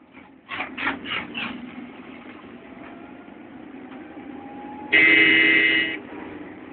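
A vehicle horn sounds once, a steady blast of about a second, over continuous vehicle and road noise.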